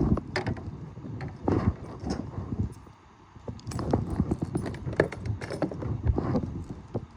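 Irregular hollow knocks, clunks and rattles of gear and handling against a plastic fishing kayak, in uneven clusters with a short lull about three seconds in.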